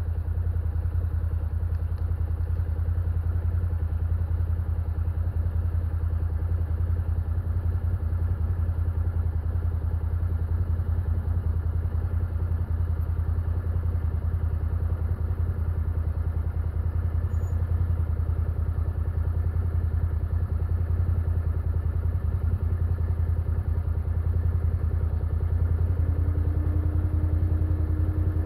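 Can-Am Defender side-by-side engine running steadily at low revs as the vehicle creeps slowly down the steep dirt trail, a low, even hum. A higher hum joins near the end and rises slightly.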